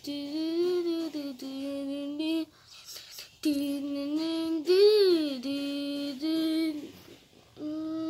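A high voice singing wordless held notes in short phrases, with a swoop up and back down about five seconds in, where it is loudest.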